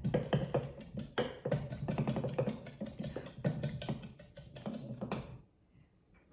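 Wooden kraut pounder tamping shredded red cabbage down into a glass jar: a quick run of dull thuds that stops about five seconds in. The cabbage is being packed down so it sits under its own salty brine.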